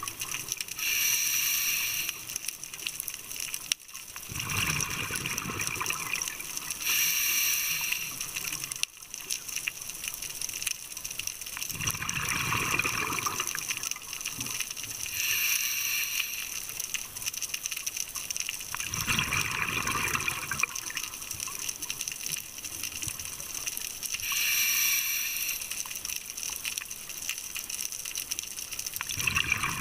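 Scuba diver breathing slowly through a regulator underwater: a hissing inhalation alternates with a gurgling rush of exhaled bubbles, one breath about every seven to eight seconds.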